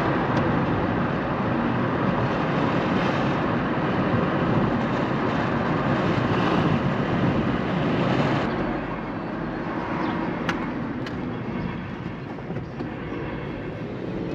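Steady road and engine noise inside a moving car, dropping noticeably about eight and a half seconds in, with two sharp clicks a couple of seconds later.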